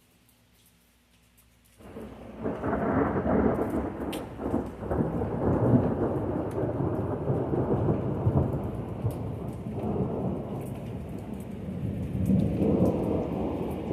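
Thunder: a long rolling rumble that breaks in suddenly about two seconds in and keeps rolling, swelling again near the end.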